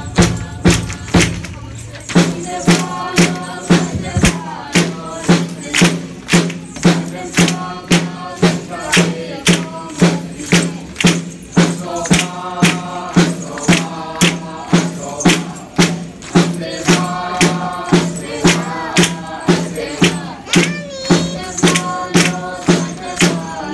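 Bamboo poles of a bamboo pole dance (cheraw) being struck together and on the floor in a steady beat of about two knocks a second, over music.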